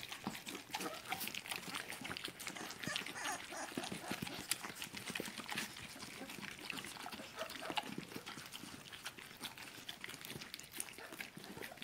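Dogs lapping and licking wet puppy gruel from a plastic bowl and plate, a steady stream of irregular wet smacks and clicks.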